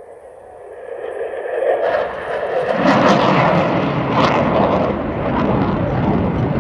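Blue Angels twin-engine F/A-18 jet roaring as it pulls up into a steep climb. The roar swells from about a second in and is loudest from about three seconds on, with a ragged crackle.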